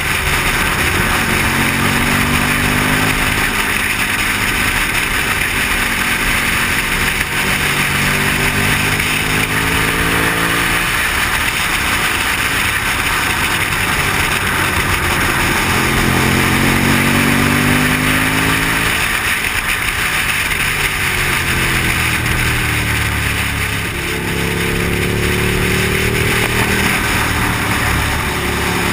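Motorcycle engine running under heavy wind rush on the microphone, its pitch climbing several times as it accelerates and dropping back between the pulls.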